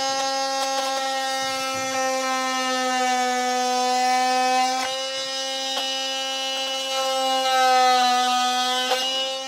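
Makita cordless oscillating multi-tool spinning up and cutting a notch out of a plastic fascia board: a steady, high buzzing whine that rises in pitch as it starts and sags slightly near the end as the blade bites.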